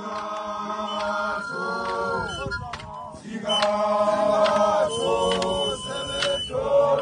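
A group of voices singing a chant together, in held phrases with a short break about three seconds in, with sharp percussive strokes through the singing.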